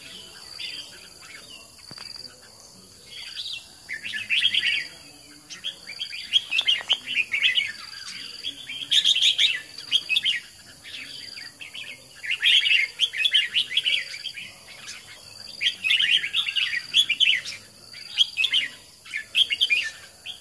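Red-whiskered bulbul singing: bursts of quick, bright chirping phrases every second or two, with short pauses between. A faint high note repeats about once a second in the background.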